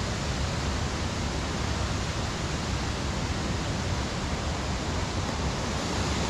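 Waterfall: a steady rush of falling water with a fluttering low rumble beneath it.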